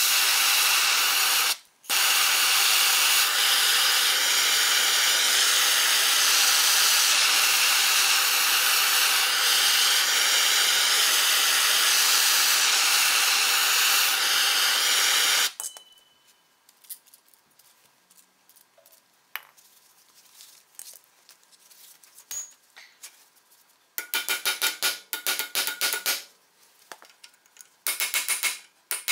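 Handheld gas torch flame hissing steadily while it heats a stuck front-axle steering spindle, with one brief break about two seconds in. It cuts off abruptly about halfway through. Near the end come two short bursts of rapid strokes from a hand tool worked on the spindle.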